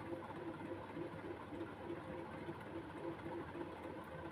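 Martec Four Seasons 48-inch ceiling fan running on high: a steady motor hum that pulses regularly, about two to three times a second. The owner puts the noise down to noisy bearings.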